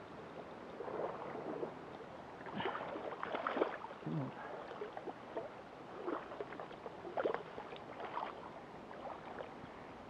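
Irregular splashing and sloshing in shallow water as a freshly landed trout thrashes at the river's edge and wading boots step through the water.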